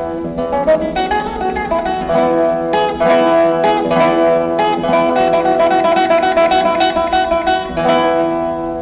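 Instrumental music played on a plucked string instrument: a run of quickly changing notes over sustained lower notes.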